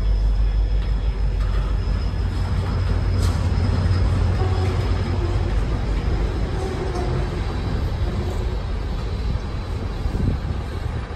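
A freight train rolling past: a steady rumble of steel wheels on rail, growing fainter near the end as the last cars go by.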